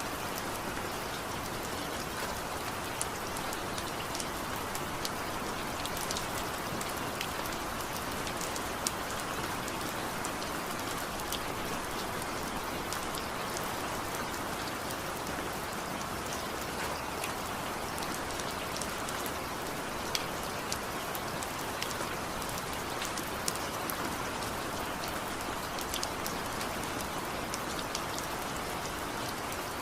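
Steady rain falling, a continuous hiss with many individual drops ticking sharply on a surface throughout.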